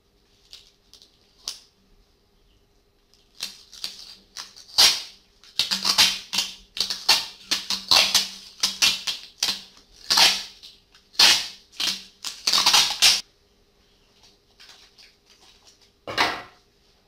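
Clear adhesive tape being pulled off its roll in a run of short rips as it is wound around a PVC pipe, a few at first, then loud and close together from about three to thirteen seconds in, with one more rip near the end.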